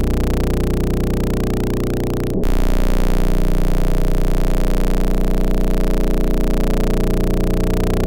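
Spaceship-interior white-noise ambience: a steady hiss over a deep drone of several steady low tones. About two and a half seconds in it cuts out for an instant and comes back slightly louder.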